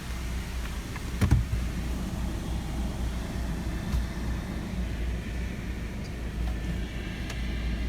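A car running with a steady low rumble, heard from inside, with one short knock about a second in.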